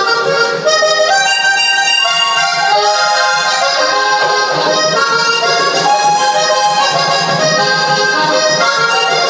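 Diatonic button accordion playing a lively vallenato tune, with melody and chords that keep changing.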